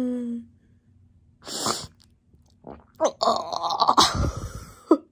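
A woman crying theatrically: a held wail tails off at the start, a sharp breath comes about a second and a half in, then a long, strained, sobbing cry fills the last two seconds.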